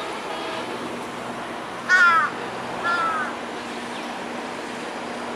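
A crow cawing twice, about two and three seconds in, the first caw the louder. Under it, a steady low hum from the approaching diesel locomotive.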